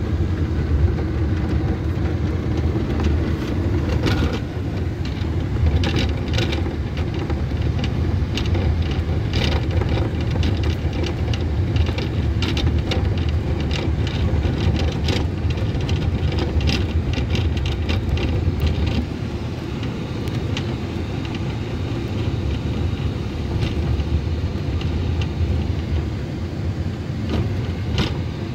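Steady low rumble of vehicle noise heard inside a Mercedes-Benz V-Class van's cabin. Scattered clicks and rattles come through, mostly in the first half.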